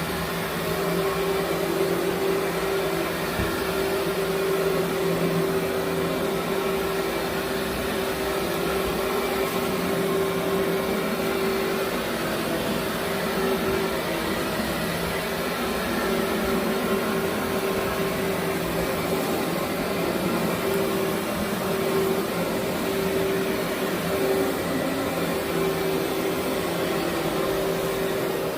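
Vacuum cleaner running steadily, a constant motor hum with a steady whining tone.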